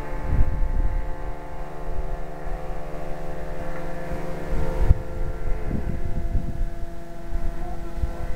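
Radio-control model airplane motor running with a steady whine that dips slightly in pitch about six seconds in, over a low rumble.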